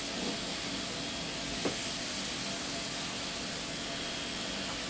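Electric dog-grooming clippers running steadily, a hissing buzz as the blade is worked through a cocker spaniel's coat to blend it.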